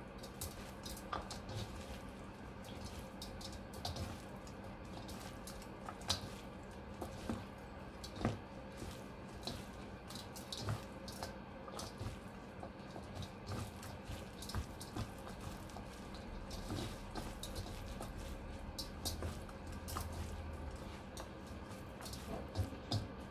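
Gloved hand tossing and squeezing chwinamul greens in a sticky gochujang dressing in a stainless steel bowl: irregular wet squishing and light clicks, several a second. A faint steady hum runs underneath.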